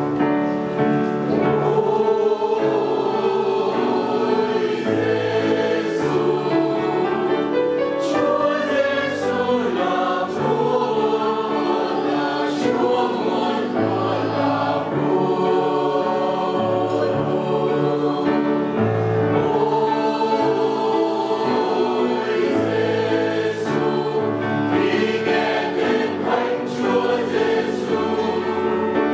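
Mixed choir of men's and women's voices singing a Vietnamese Catholic hymn, sustained and continuous.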